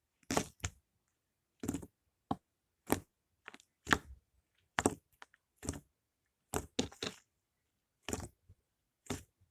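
Fluffy slime poked repeatedly with fingers: a series of short squishy pops, about one a second, some in quick pairs.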